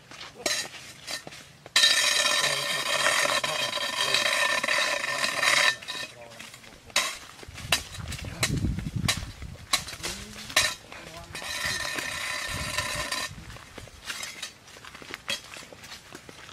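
Footsteps and stick taps on a dirt path, with a loud high buzz that starts and stops abruptly twice, once for about four seconds and later for about two. A low rumble comes about halfway through.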